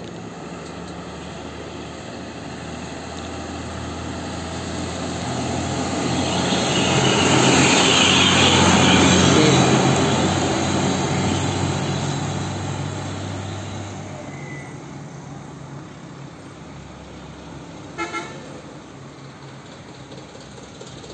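A heavy dump truck's diesel engine and tyres passing close by, growing loud and then fading over several seconds. A short double horn toot comes near the end.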